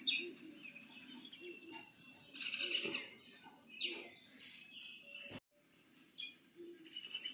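Birds chirping in the background, with repeated short high chirps; the sound drops out suddenly for a moment about five seconds in.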